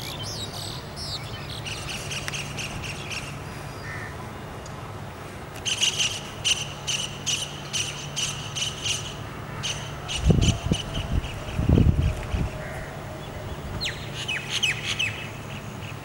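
Birds twittering and calling in the garden, with a run of sharp repeated calls, about three a second, in the middle. Two loud low thuds of wind or handling on the microphone come a little after, over a faint steady low hum.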